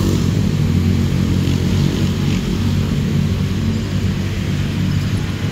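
Vehicle engine running with a steady low hum, amid street traffic; the hum fades a little toward the end.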